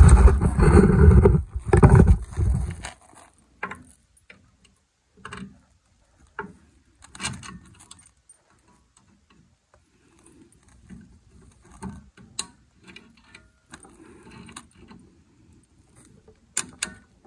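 A loud rubbing, rustling noise of hands and an arm against the phone for the first few seconds. Then scattered small metallic clicks and taps as drum brake hardware (shoe hold-down studs and springs) is worked by hand with pliers.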